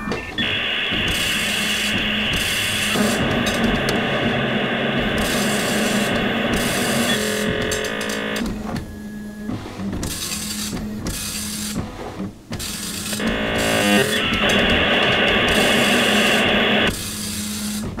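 Modem handshake over a telephone line: short runs of stepped tones, then long stretches of hiss, in two rounds with a quieter gap between. A steady low hum runs under it.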